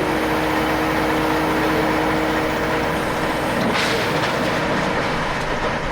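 Diesel engine of heavy construction equipment running steadily under load, a constant rumble with a steady whine over it, and a short hiss about halfway through.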